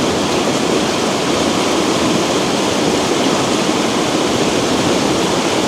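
River rushing: a steady, even rush of flowing water.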